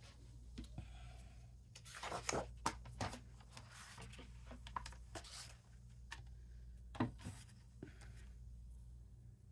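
Sheets of patterned paper rustling and sliding as they are handled and lined up on a plastic paper trimmer, with a few sharp taps and knocks as the trimmer and paper are set in place.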